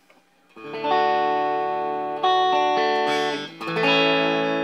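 Donner DTC-100W Telecaster-style electric guitar through an amp, strumming three ringing chords starting about half a second in. Its push-pull control is pulled up for the boosted setting of the next pickup position.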